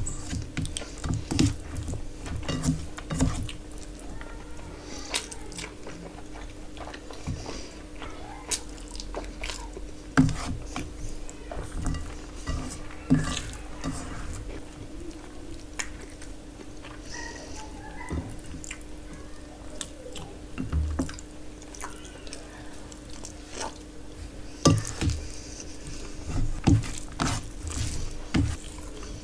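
Close-miked eating by hand: chewing and mouth smacking, with irregular wet clicks and squishes as rice and chicken curry are mixed with the fingers on a steel plate. A faint steady hum runs underneath.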